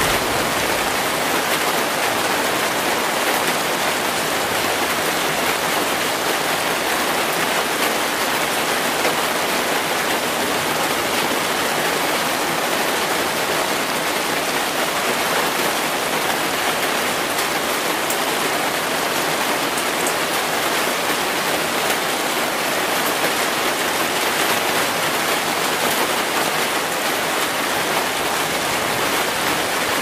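Heavy rain falling steadily onto a sheet of open water, a dense, even downpour with no let-up.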